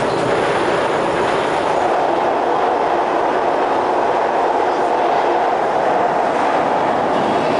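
Steady running noise of an SMRT C151 metro train, heard from inside the car: wheels on rail and the running gear at an even level, with no pitch change.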